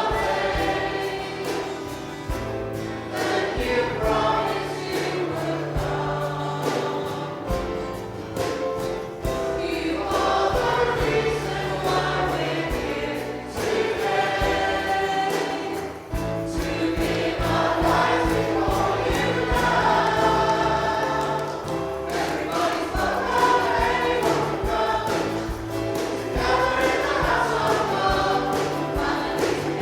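Worship song sung by a group of voices, with instrumental accompaniment and a steady beat.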